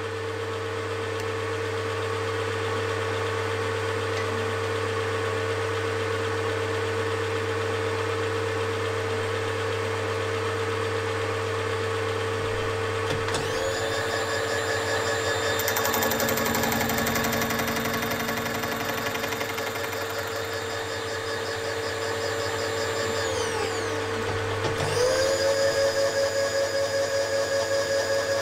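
Milling machine running steadily while cutting gear teeth with a 32 DP gear cutter. About halfway through a second motor whines up in pitch, runs for about ten seconds, winds down, then starts up again near the end.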